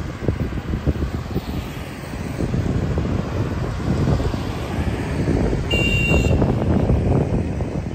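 Street traffic passing: a street-sweeper truck and motorbikes driving by with a steady low engine rumble. A short high beep comes about six seconds in.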